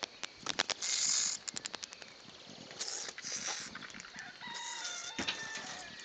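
A rapid run of sharp clicks and a brief papery rustle as a bat scrabbles off a notebook onto roof tiles. About four and a half seconds in comes a single held call of about a second, a rooster crowing.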